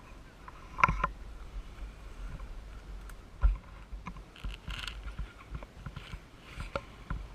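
Low rumble with irregular knocks and scraping rustles, the loudest knock about three and a half seconds in: a quad ATV's mounted camera jolting over rough, overgrown trail.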